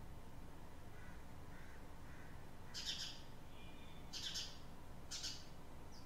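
Birds chirping: faint calls early, then three short bursts of high chirps about a second apart, over a faint steady background noise.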